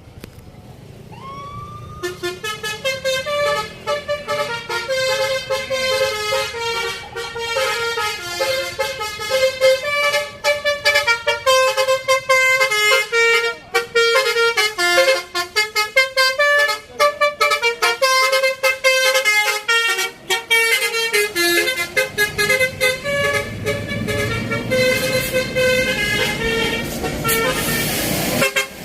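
Telolet Basuri V3 musical bus horn playing a fast multi-note melody, its tones changing pitch several times a second, starting about two seconds in after a short rising tone. Near the end the melody gives way to a broad hiss.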